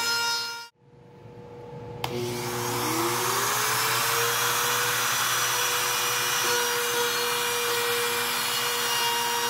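Ridgid compact router running, cutting off under a second in. About a second later it starts again with a click, spins up in a rising whine and runs steadily as its bit cuts a straight groove in a cedar board.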